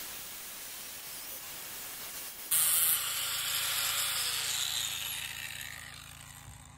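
Small corded angle grinder with a masonry cutting wheel running and cutting through a ceramic wall tile, the cut getting louder about two and a half seconds in. The sound then dies away near the end as the grinder is lifted off.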